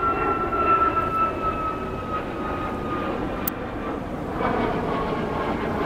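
Jumbo jet airliner flying over, a steady engine noise with a high whine that slowly falls in pitch. A single sharp click about halfway through.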